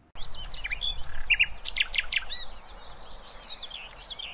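Several birds chirping and singing, with many quick up-and-down whistles and chirps over a soft steady hiss, starting suddenly.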